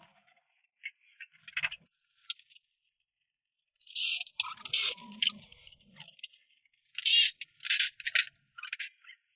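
Metal clinking, scraping and rattling of hand tools and engine parts during engine-bay disassembly, in irregular short bursts, the loudest a few seconds in and again about seven seconds in.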